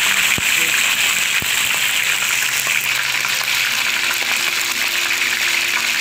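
Marinated chicken pieces deep-frying in hot oil: a loud, steady sizzle with a couple of sharp pops in the first second and a half.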